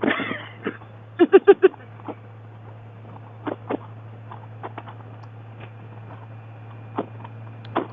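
A short burst of four quick laughing syllables about a second in, over a steady low hum, with scattered faint clicks afterwards.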